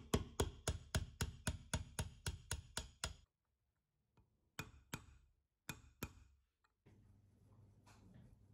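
Hammer tapping a steel pin punch to drive a retaining pin into the bevel pinion gear of a hand-cranked drill: a quick, even run of sharp metallic taps, about four a second, for around three seconds. After a short break come two more pairs of taps.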